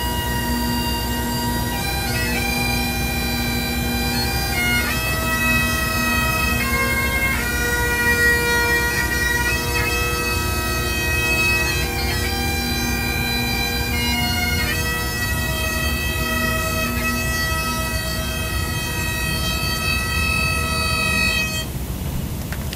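Bagpipes playing a slow melody of long held notes over a steady drone, stopping just before the end.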